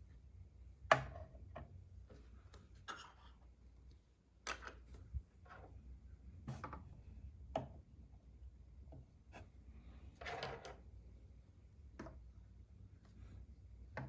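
Small plastic toy pieces being handled: scattered light clicks and knocks, the sharpest about a second in, with a brief rustle about ten seconds in.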